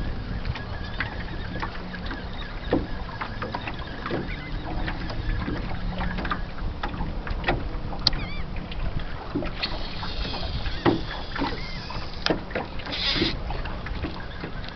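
Water slapping and knocking irregularly against a small 14 ft Monark boat's hull as it rocks, over a steady low rumble, with a brief high whirr near the end.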